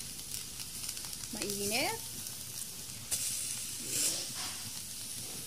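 Whole bukaw-bukaw fish sizzling on a hot ridged grill pan: a steady hiss that grows louder for a moment about three seconds in and again about four seconds in.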